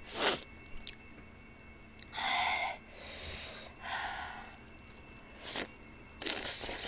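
Mouth sounds of eating spicy chicken feet: a sharp slurp right at the start, then several short sucking and chewing noises with a few small clicks as a chicken foot is worked in the mouth.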